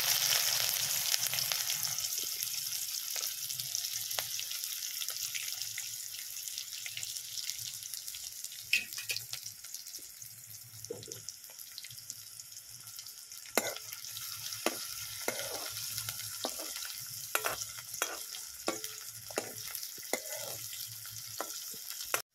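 Chopped onions sizzling in hot oil in a kadai, loud just after they go in and slowly dying down. Scattered sharp clicks and pops come through the second half.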